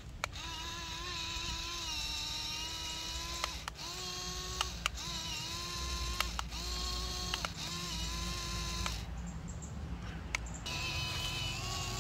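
Small electric gear motor of a home-made toy tractor whining steadily as it pulls a cultivator through soil. The pitch shifts a little as the load changes, and the whine breaks off with clicks several times.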